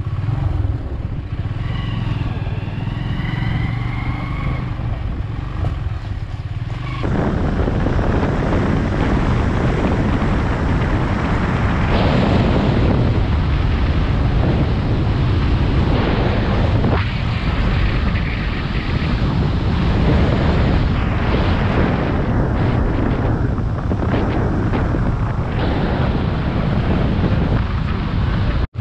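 Motorcycle engine running, quieter at first, then about seven seconds in it becomes a louder ride at speed with the engine and wind rushing over the camera microphone.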